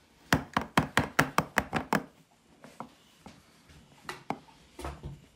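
An upturned bundt cake pan being rapped through kitchen towels to loosen the baked cake onto a plate: a quick run of about nine sharp knocks in under two seconds, then a few fainter, scattered knocks.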